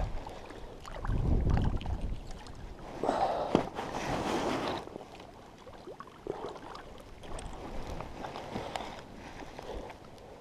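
Shallow lake water splashing and sloshing in irregular bursts as a hand, wetted to handle a freshly caught small cutthroat trout, and the fish move in it. The splashing is louder in the first half and quieter later.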